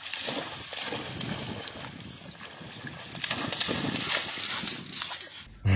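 A dog bounding through shallow river water, its feet splashing in quick repeated strides. The splashing stops abruptly near the end.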